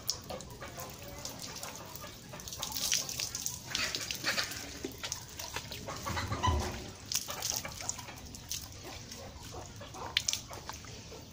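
Water poured from a plastic scoop over a wet horse's coat, splashing and dripping onto muddy ground, with hands rubbing the wet hair. Animal calls sound in the background, the loudest a short low call about six and a half seconds in.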